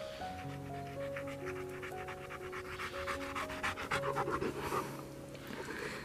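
A dog panting rapidly close to the microphone, fading out near the end, over background music of slow, held notes.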